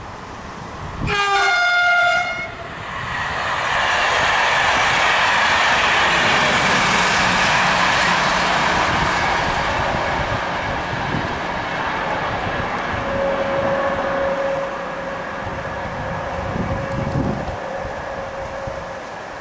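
A train horn sounds once, briefly, about a second in. Then a locomotive-hauled regional train, electric locomotive BB 22357 with four coaches, passes by with a long rush of wheel and rail noise that slowly fades, and a steady tone joins it past the middle.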